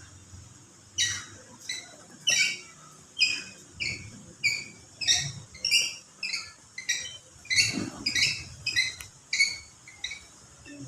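A hospital bed being raised by its hand crank, squeaking rhythmically about three times a second with short, high squeaks. There is a single dull knock near the end.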